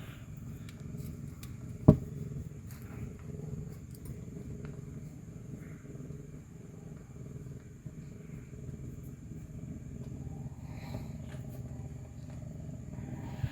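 Domestic cat purring steadily, a continuous low rumble. A single sharp click about two seconds in.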